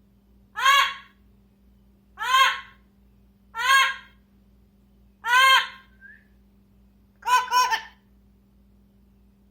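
An animal calling over and over: five short, loud, rising-and-falling calls about one and a half seconds apart, the last one doubled.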